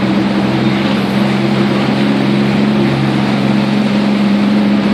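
Engine of a small motor craft running at a steady low speed, a constant hum, with water and wind noise over it.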